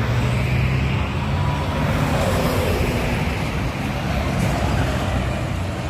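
Highway traffic: a heavy vehicle's engine hum and tyre noise running steadily at speed.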